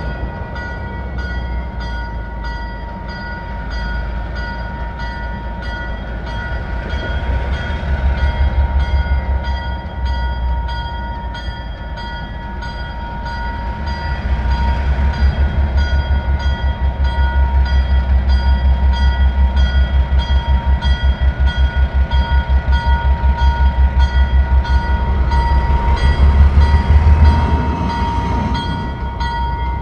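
ALCO S-6 switcher's 900-horsepower diesel engine labouring under a heavy train, notching up and falling back. The engine surges briefly about a quarter of the way in, sags, then builds from about halfway into a long loud stretch of deep, even chugging that drops back near the end. This is the sound of the engine struggling to lug the load.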